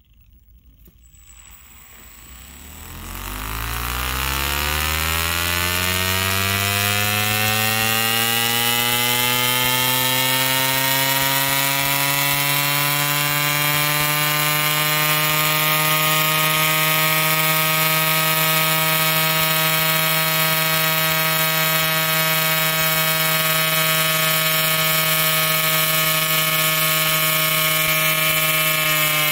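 3D-printed brushless motor, rewound to run off a brushless ESC and spinning a flywheel, speeding up from idle. Its whine rises in pitch over the first few seconds, then holds steady at high speed, easing down slightly right at the end.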